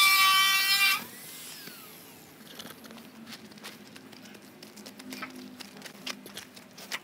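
A loud, steady pitched tone lasts about a second, starting and stopping abruptly. After it comes a faint outdoor background with scattered light clicks and taps.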